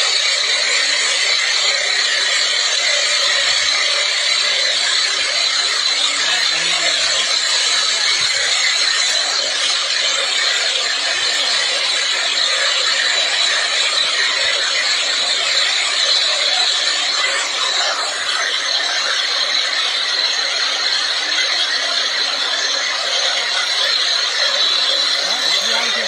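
Homemade helicopter running on the ground with its main and tail rotors spinning: a loud, steady mechanical noise.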